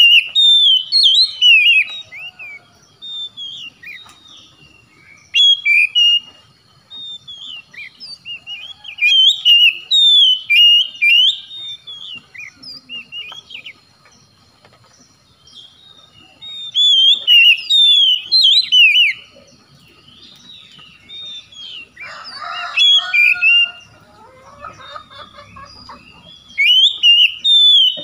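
Oriental magpie-robin singing in loud bursts of rapid, sliding whistled phrases a few seconds long, with short pauses between them. A lower, rougher call breaks in about two-thirds of the way through.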